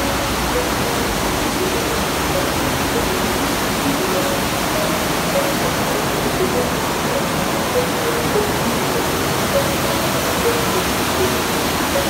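Underground waterfall in a cave, water rushing in a steady, loud hiss.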